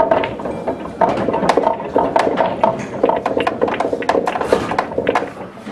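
Pool balls clicking and clacking against one another many times in quick, uneven succession, over a low murmur of voices in the hall.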